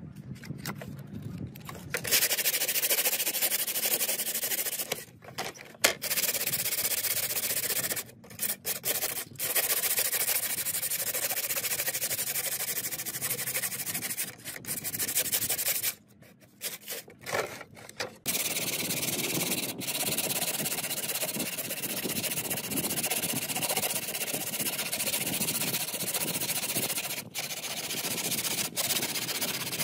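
Steady abrasive rubbing, like sanding, on a laptop part, in long stretches with brief breaks about 5, 8 and 16 to 18 seconds in.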